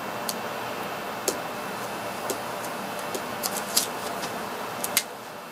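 Steady hiss of room noise, with a few light, sharp clicks scattered through it.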